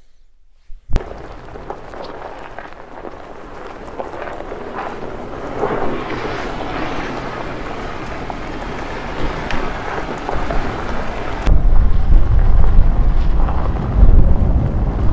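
2020 Toyota 4Runner under way: a steady rush of road and wind noise. About three-quarters of the way through it turns abruptly to loud, low wind buffeting on the microphone.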